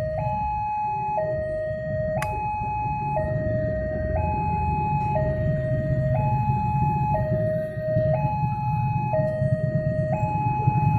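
Railway level-crossing warning alarm: an electronic two-tone signal switching between a lower and a higher note about once a second, signalling an approaching train. Underneath is a low engine rumble from traffic waiting at the crossing, and there is one sharp click about two seconds in.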